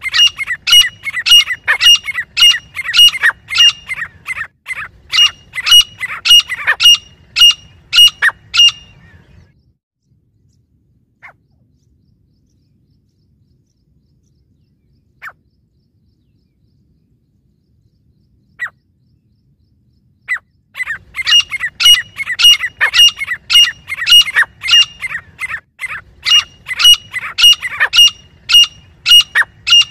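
Grey francolins calling: a fast run of loud, ringing repeated notes, about two to three a second, for roughly nine seconds. Then a lull with a few single notes, and a second run of calls starting about twenty seconds in.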